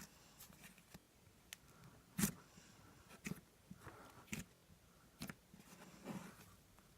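Butter slime being squished and poked by hand, giving faint sticky clicks and crackly pops about once a second, the loudest about two and a quarter seconds in.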